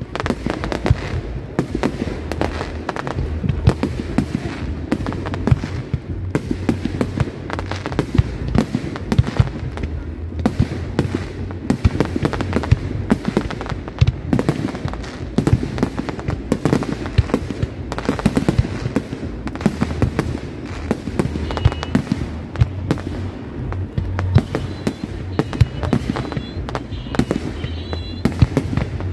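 Fireworks display: a rapid, unbroken barrage of aerial shells bursting, with many sharp bangs and dense crackling overlapping with a low rumble.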